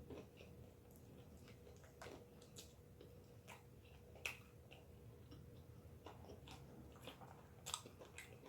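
Quiet chewing of crunchy fried chicken: scattered soft crunches and mouth clicks, a little stronger about four seconds in and again near the end.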